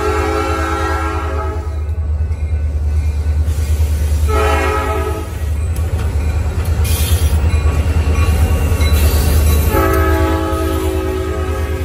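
Freight train's lead diesel locomotive sounding its air horn in three blasts: one ending about two seconds in, a short blast around four seconds, and a long one starting near the end. Under it the diesel locomotives rumble steadily, louder as they pass close by.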